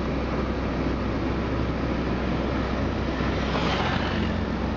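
Steady rumble of street traffic, with a passing vehicle's hiss swelling and fading about three and a half seconds in.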